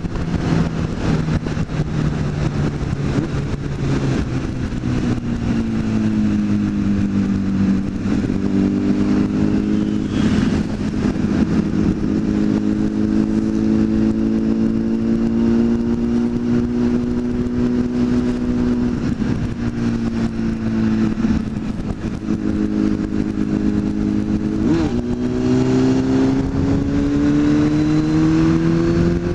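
Sport motorcycle engine running at road speed, with wind rushing over the microphone. The engine note sinks around six seconds in as the bike eases off, holds steady, then climbs again near the end as it accelerates.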